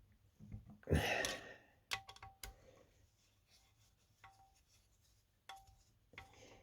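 Workbench handling noise from chainsaw parts being worked on: a short scraping rustle about a second in, then a few sharp clicks and light knocks of small metal parts.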